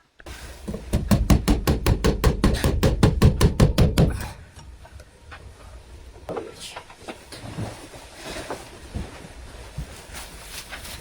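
A rapid, even run of knocks, about six a second, lasting about four seconds, then quieter scattered knocks and clatter.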